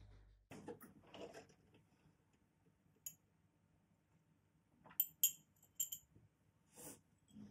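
Drinking glass of iced coffee clinking: a few light, ringing clinks about five seconds in, with softer handling knocks before and after.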